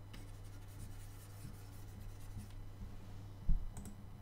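Faint scratching of a stylus being stroked across a graphics tablet over a steady low hum. About three and a half seconds in there is one sharp thump, followed by a few light clicks.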